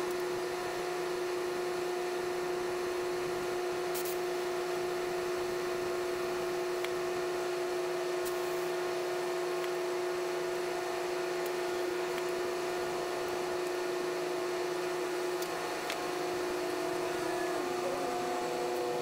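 Air-pump compressor running with a steady hum while a low trailer tire is inflated through an air hose. Its pitch shifts near the end, and there are a couple of faint clicks earlier on.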